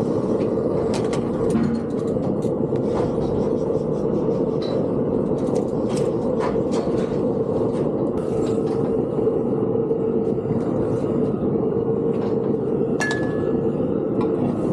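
A vehicle running steadily with a constant hum, with repeated metallic clinking and rattling over it.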